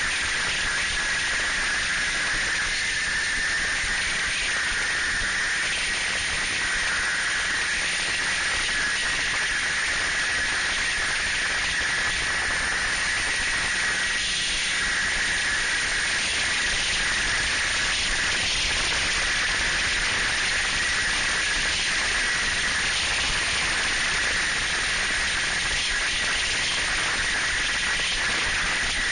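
Steady rushing hiss of a snowmobile under way at speed: wind buffeting the microphone of a camera mounted on the moving machine, blended with the running engine and track. No distinct engine note or rhythm stands out.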